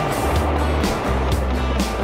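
Background music with a steady beat and a held bass line.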